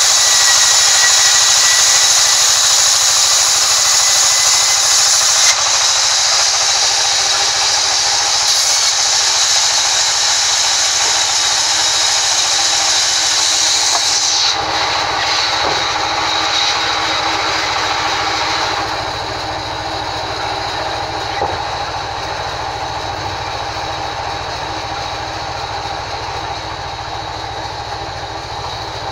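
Sawmill vertical band saw running and cutting lengthwise through a thick timber board: a loud, steady hissing whine of the blade in the wood. The sound changes abruptly about halfway through, and its high hiss fades further about two-thirds in, leaving a softer running hum.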